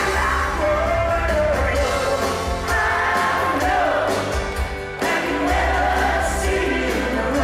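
Live rock band playing, with a lead voice singing over electric guitars, a strong bass line and drums, recorded from among the audience in a concert hall.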